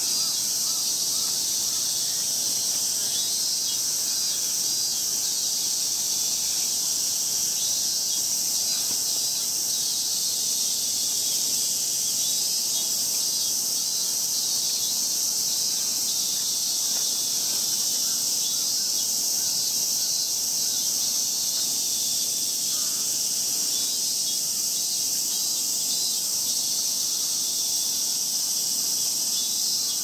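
A steady chorus of cicadas: a continuous high-pitched drone with no breaks.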